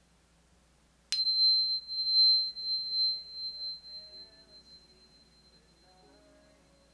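Angel Tuner tuning fork, a fork tuned to 4096 Hz, struck once about a second in. It rings a single high pure tone that slowly fades over several seconds, sounded as a healing tone.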